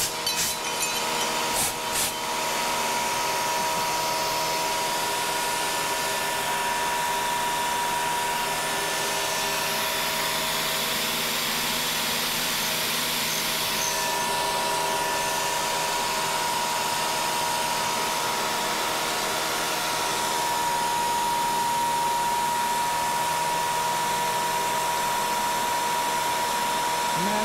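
Bridgeport CNC mill's end mill cutting a stack of 1/16-inch aluminium sheet, a steady whine over the hiss of the mist coolant. A few short blasts from a hand-held air nozzle clear chips in the first two seconds.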